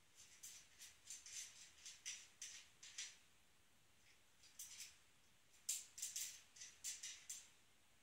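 Irregular clusters of short, faint clicks and scrapes from hands working at a Brompton's front wheel and tyre during a tyre change, with pauses between the clusters.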